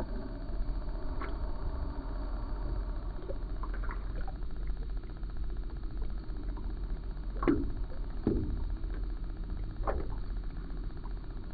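A motor running steadily with a low hum, with a few short, sharp sounds in the second half.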